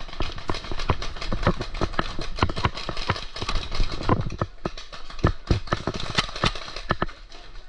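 Paintball markers firing in a rapid, irregular string of sharp pops, several a second, during a firefight.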